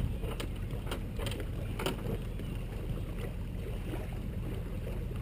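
A few sharp metallic clicks and clanks from a boat trailer's bow winch and strap being worked, over a steady low rumble.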